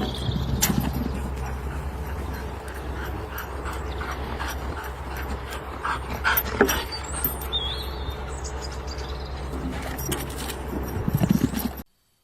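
A dog's sounds over a steady low hum, with scattered clicks and knocks; all sound cuts off suddenly near the end.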